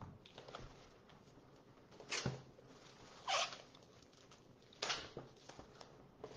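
Packaging of a CD box set handled by hand: several short rustling scrapes of cardboard and plastic, a second or so apart.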